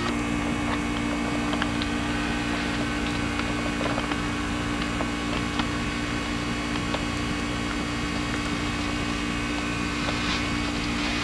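Steady electrical hum and hiss, with a few faint clicks.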